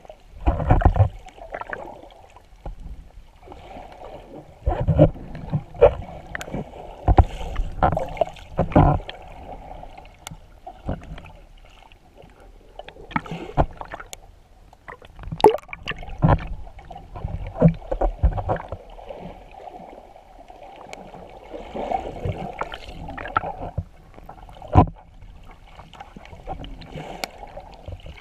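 Muffled underwater sound of a snorkeler swimming, picked up by a submerged camera: water rushing and bubbling, with irregular low thumps and swishes as fins kick and water pushes against the camera.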